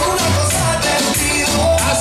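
Loud Latin dance music with shaker percussion over a repeating bass line.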